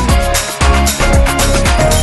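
Electronic dance music with a steady driving beat and sustained synth notes, which drops out briefly about half a second in.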